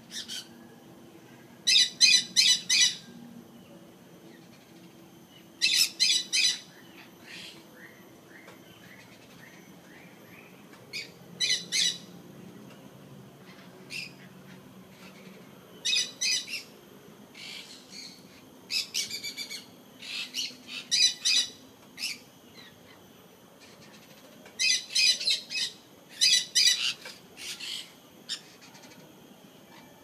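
Conures squawking: bursts of rapid, harsh, shrill calls, each burst a quick string of four to six notes, coming every few seconds.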